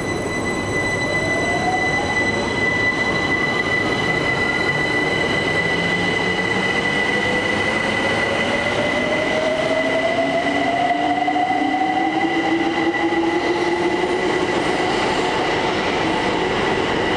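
London Overground electric train accelerating: the whine of its traction motors rises steadily in pitch as it gathers speed, over a continuous rail rumble and a steady high-pitched tone.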